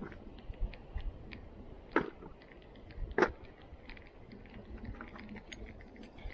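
Scattered light clicks and ticks, with two sharper knocks about two and three seconds in, over a low rumble.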